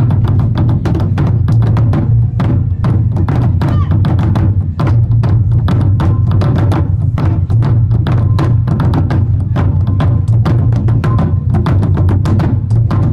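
Thai war drumming: several large barrel drums beaten with sticks by a troupe, in a fast, dense, unbroken rhythm with a deep boom underneath.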